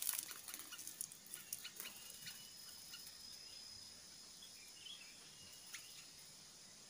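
Faint countryside ambience. Scattered soft clicks and short high chirps come in the first couple of seconds, then a thin steady high insect whine runs until near the end, with one more short chirp.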